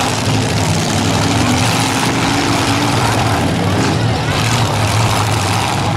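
Demolition derby cars' engines running loud and steady, several at once.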